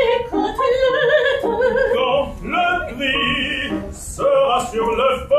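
Operetta singing by a trio of classically trained voices, two men and a woman, in quick short notes with a longer held note around the middle.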